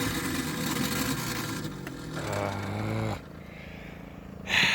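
Ford 2.3L four-cylinder boat engine running just after a restart, badly overheating; the sound cuts off suddenly about three seconds in. A short hiss follows near the end.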